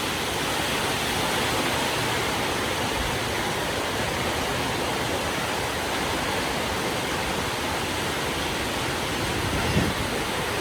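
Heavy rain falling steadily, a dense even hiss. A single brief low thump sounds near the end.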